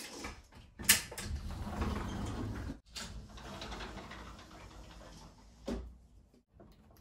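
Curtains being drawn open along their rails, along with a sliding glass window or balcony door. A sharp click comes about a second in, followed by a rumbling slide, then more sliding and a knock near the end.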